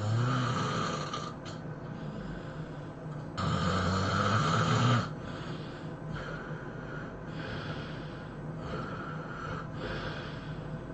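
A person snoring heavily: two loud, drawn-out snores, one at the start and one about three and a half seconds in, each lasting about a second and a half. Quieter snoring breaths follow, about one a second.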